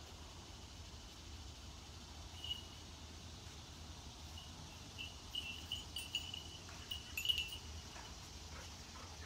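Faint insects chirping in short, irregular bursts, with a light click about seven seconds in, over a low steady rumble.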